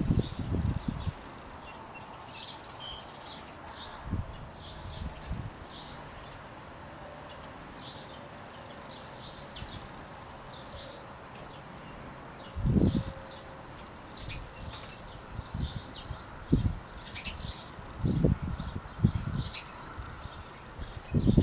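Small birds chirping: a steady stream of short, high chirps and twitters, several a second, growing denser after the first few seconds. A handful of brief low thumps, louder than the chirps, break in now and then, most strongly about two-thirds of the way through and again near the end.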